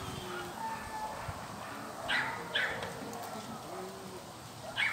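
Dogs barking in the background, two short barks about two seconds in and another at the end.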